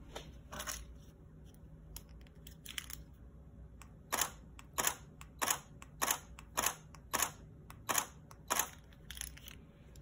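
Canon EOS 7D DSLR shutter firing eight times in a row, a sharp click about every 0.6 s starting some four seconds in, each release set off by the Canon RC-6 wireless remote. A few faint handling clicks come before them.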